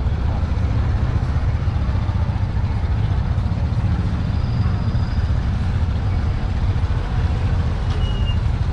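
Busy street ambience with a steady low rumble of motorcycle engines moving slowly through the lane. A short high chirp comes near the end.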